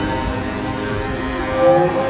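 Droning background music of many steady held tones, with a brief louder sliding tone about a second and a half in.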